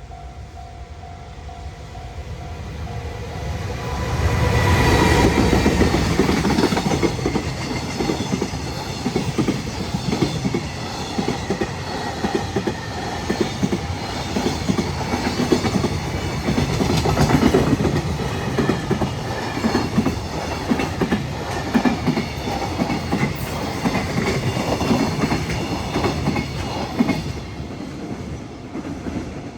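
Freight train hauled by an EF210 electric locomotive passing close by. The locomotive arrives about four seconds in, the loudest moment. A long line of wagons follows, its wheels clacking in a steady run of beats, and the sound eases off near the end.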